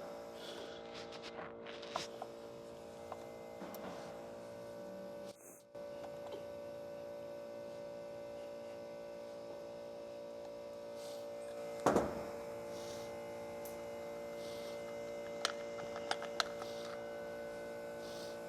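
Steady electrical hum with scattered light clicks and one sharper knock about twelve seconds in, from tools and small parts being handled while a chainsaw's brake spring cover is taken off.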